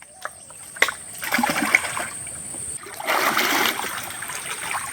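Water splashing in irregular bursts, with a couple of sharp clicks about a second in, as fish are taken from a riverside fish trap.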